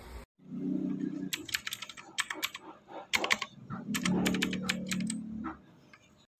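Typing on a RAKK DIWA mechanical keyboard: irregular runs of sharp key clicks, quick at times, over a few seconds.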